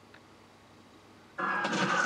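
Faint room tone, then about one and a half seconds in the cartoon's soundtrack cuts in suddenly and loudly: a dense mix of sound effects or music with a tone that slides slightly downward.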